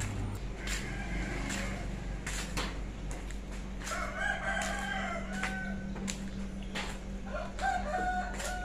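A rooster crowing twice: a long call about four seconds in and another near the end, over scattered light clicks.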